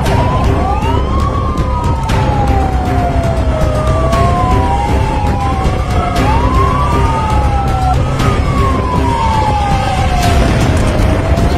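Fire truck siren wailing, each slow rise and fall taking several seconds, with a second siren wail overlapping it at times. Underneath is a heavy, steady rumble of engine and road noise from riding on the moving truck.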